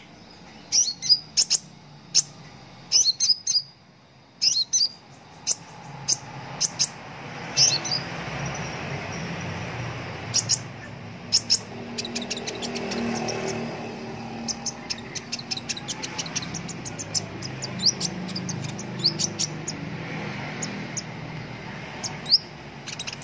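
Male Van Hasselt's sunbird (kolibri ninja) giving sharp, high chirps in quick clusters, which turn into a dense, rapid run of chirps in the second half.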